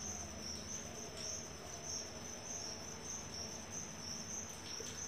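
Crickets chirping: a steady high-pitched trill that swells and fades in regular pulses, faint against quiet room tone.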